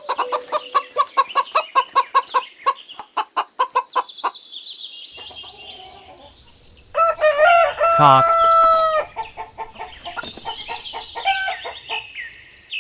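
Chickens clucking in a fast run of short clucks, about four a second, with high thin peeping over them. About seven seconds in, a rooster crows once, a loud call of about two seconds. Scattered clucks and chirps follow.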